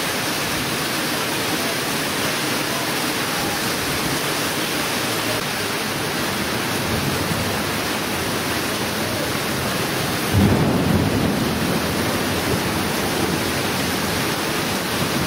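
Rain pouring steadily in a storm, with a sudden low rumble of thunder about ten seconds in that dies away over a couple of seconds.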